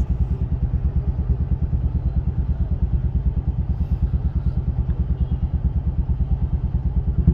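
Motorcycle engine idling with a steady, rapid low throb, heard from inside a car stopped just behind it.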